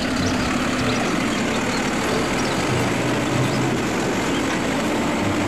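Automated side-loader garbage truck's diesel engine running steadily while its hydraulic arm grabs a wheelie bin and lifts it up over the hopper to tip it.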